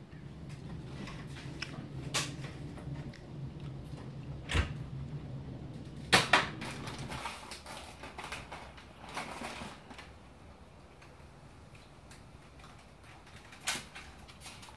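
A few sharp plastic clicks and knocks from a Nerf foam-dart blaster being handled and loaded. The strongest is about four and a half seconds in, followed by a quick pair of clicks about six seconds in. A low hum stops about halfway through.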